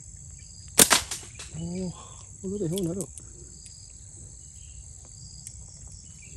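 A slingshot shot: a sharp crack about a second in, followed a fraction of a second later by a second crack. Two short wavering voice sounds follow, over a steady high insect drone.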